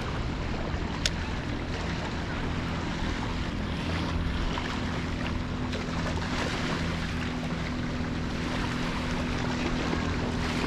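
Wind on the microphone and water noise at the shore, over a steady low hum, with a single sharp click about a second in.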